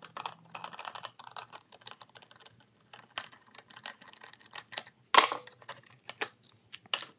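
A quick run of small metal-and-plastic clicks as a nut driver loosens the fastener on a Briggs & Stratton lawn mower's plastic air filter cover, then a louder single clack about five seconds in as the cover comes open, and one more click near the end.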